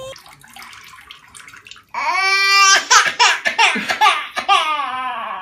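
Faint splashing of bath water, then from about two seconds in a baby squealing and laughing in a string of high-pitched, rising-and-falling cries.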